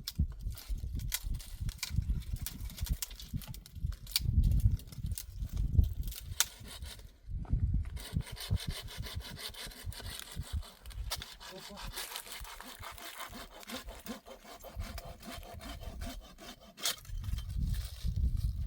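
Wood being sawn by hand for firewood in uneven strokes, with low thuds in between.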